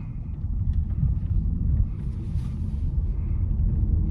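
Low, steady road and tyre rumble heard inside the cabin of a moving Volkswagen Arteon, with a faint hiss rising briefly about two seconds in.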